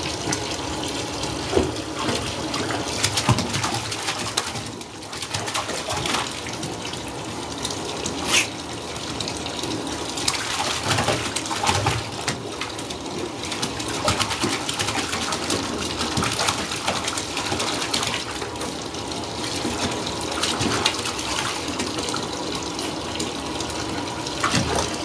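Bathtub tap running into shallow water, with a kitten's paws slapping and splashing in it at irregular moments.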